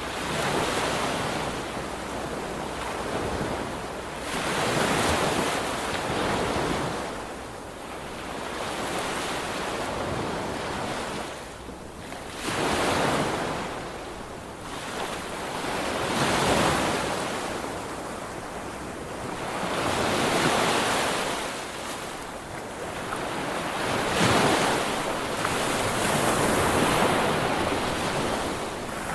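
Sea waves breaking and washing up a shore, each surge swelling and fading every few seconds, with some wind noise on the microphone.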